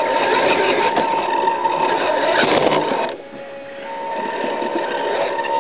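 Small electric motor and gears of a radio-controlled rock crawler whirring steadily. About three seconds in it dies away briefly, then picks up again.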